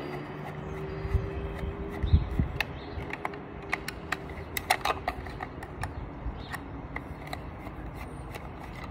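Small screwdriver turning out screws from the plastic cyclone assembly of a Dyson V8 cordless vacuum: irregular small clicks and creaks of the driver tip and the plastic housing as each screw is backed off.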